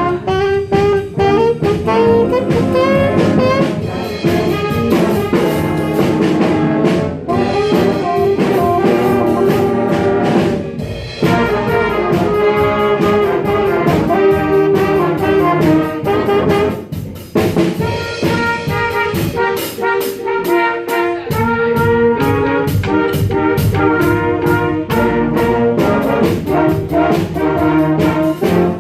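Jazz band with horns playing an up-tempo chart, with brass prominent over saxophones and a drum kit; cymbal strokes tick steadily near the end.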